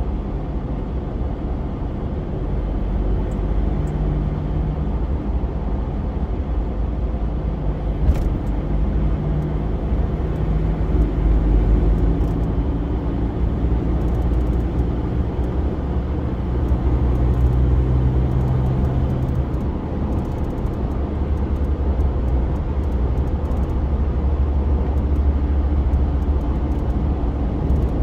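Inside a car cruising at highway speed: steady engine and tyre rumble, with a faint engine hum that drifts in pitch. A brief click sounds about eight seconds in.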